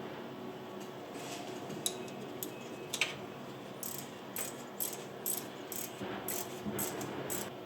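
Hand ratchet wrench clicking as it is worked on a nut: a few separate clicks, then a run of short back-strokes about twice a second in the second half.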